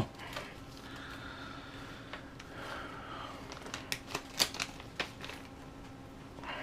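Small plastic parts being handled by hand: soft rustling and sliding, then a quick run of clicks and taps about four seconds in.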